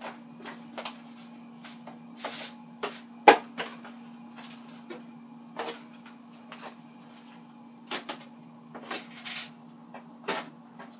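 Disposable aluminum foil pans crinkling and knocking as battered chicken wings are shaken off and laid into them: irregular short crackles and clunks, the loudest a little past three seconds in. A steady low hum runs underneath.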